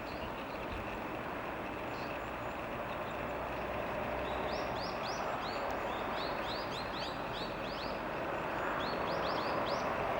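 Eurasian tree sparrows chirping in quick runs of short chirps, about four or five a second, starting about four seconds in and coming again near the end, over a steady wash of traffic noise.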